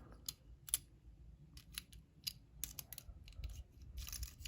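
Metal lock-picking tools clicking and scraping in a lock: a string of faint, separate metal clicks, then a short stretch of scraping near the end.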